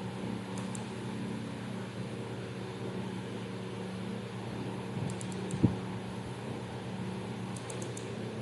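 Steady low machine hum, like a fan or motor, with a few faint short high ticks and a single thump a little past halfway.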